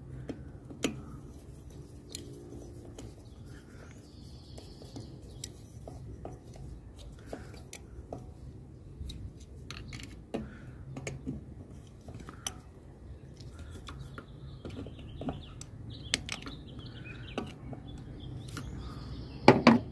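Scattered small clicks and scrapes of a Torx screwdriver working the mounting screws of an idle air control valve as they are tightened, with a louder knock near the end.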